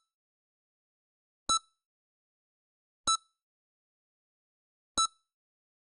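EKG heart monitor beeping: three short, identical high beeps about one and a half to two seconds apart, with silence between. Each beep marks one heartbeat.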